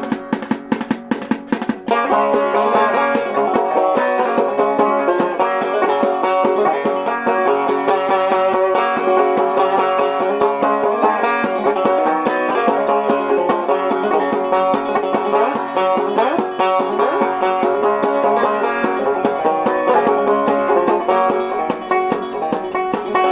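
Banjo played clawhammer style in an instrumental break, with a few sharp, separate strokes over the first two seconds and then steady, driving picking of the melody.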